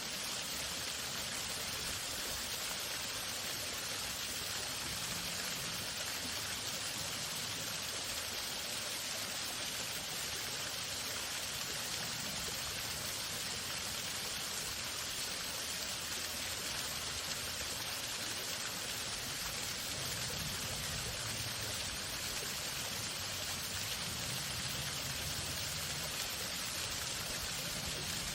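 Waterfall running steadily: an even, continuous sound of falling water.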